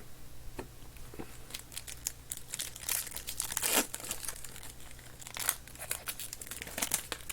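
Trading-card pack wrappers crinkling and tearing as packs are opened by hand: a run of short crackles, the loudest about four seconds in.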